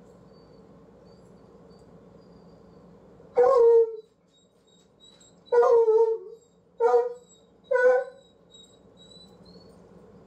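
A dog barking four times at uneven intervals, the second bark longer with a falling tail.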